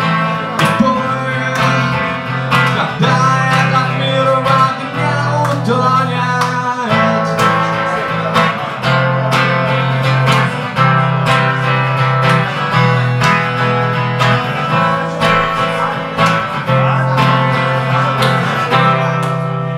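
Acoustic guitar strummed in steady rhythm during an instrumental break of a live song, over sustained low bass notes that change in steps.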